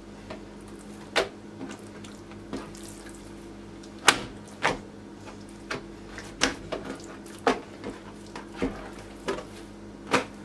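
Oiled hands pressing and stretching very soft, rested boyoz dough on a wooden board: scattered short wet slaps and squelches, the sharpest about four seconds in, over a steady low hum.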